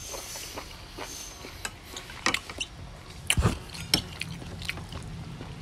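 Close-up eating sounds: chewing a mouthful of goat soup and noodles, with several sharp clicks and knocks of chopsticks and a spoon against the plate and bowl, the loudest between two and four seconds in.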